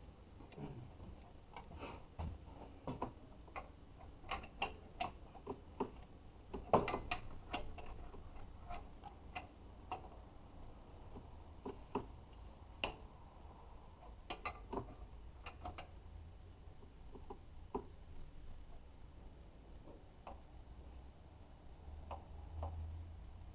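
Irregular light clicks and metallic taps of hand tools being worked on an engine, some in quick runs, over a faint low hum.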